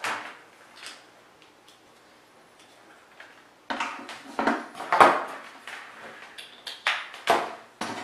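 Clicks, taps and light rattles of cable connectors and wires being handled and plugged in. The handling starts about four seconds in, after a quiet stretch, with a dozen or so sharp clicks and knocks of uneven loudness.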